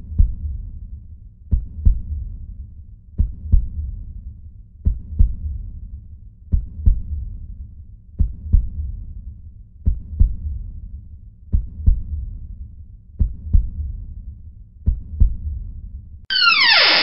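Heartbeat sound effect: slow paired low thumps, lub-dub, repeating about every second and a half. Near the end it gives way to a loud hissing noise that sweeps quickly downward in pitch.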